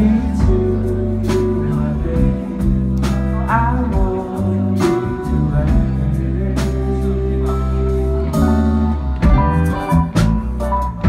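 A live band playing a song, with electric bass, drums, electric guitar and keyboard, and a sung vocal at times, recorded from among the audience.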